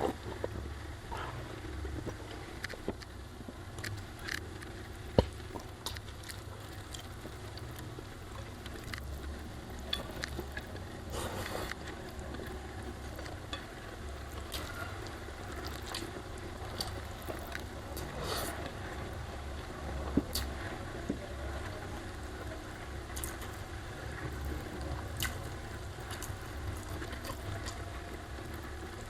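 A person eating rice with omelette, cassava leaves and sambal: chewing and wet mouth smacks, with scattered clicks of food and plate and one sharp click about five seconds in, over a steady low hum.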